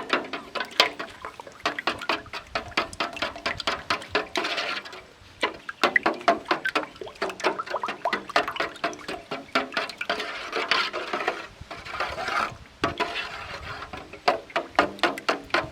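Eggs being beaten in a bowl: a fast, steady run of utensil clinks against the bowl, several a second, with the liquid egg sloshing. It pauses briefly about five and twelve seconds in.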